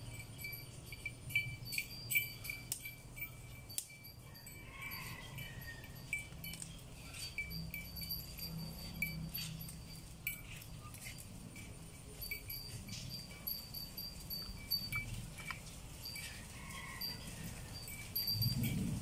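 Light splashing of water as a baby monkey moves about in a shallow basin of soapy water. Behind it are a steady low rumble and many short, high-pitched chirps and ticks.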